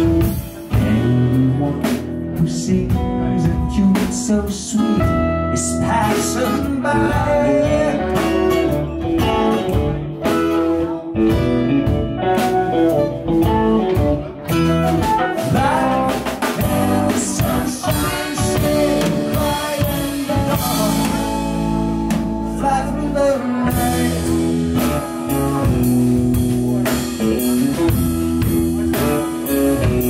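Jam band playing live: electric guitar, bass and drum kit, with a singer.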